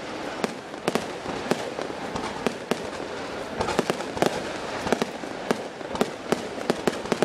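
Fireworks display: a rapid, irregular run of sharp bangs from exploding shells, about two to three a second, over a steady background noise.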